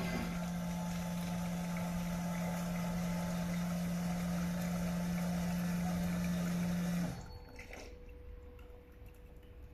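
WF1-306B coffee vending machine making a drink: a motor hums steadily while liquid rushes into the cup, then both cut off suddenly about seven seconds in as the drink is finished.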